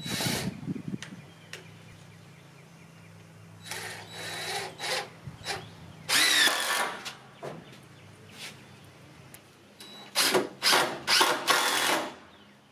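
Cordless drill driving screws into wooden trim boards in several short runs: one at the start, two around four and six seconds in, and a longer stuttering run near the end.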